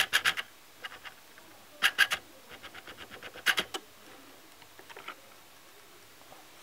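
Clicks and taps of a camera being handled as its focus and zoom are adjusted: several clusters of sharp clicks, with a quick run of small, evenly spaced clicks about midway, and only faint ones after about four seconds.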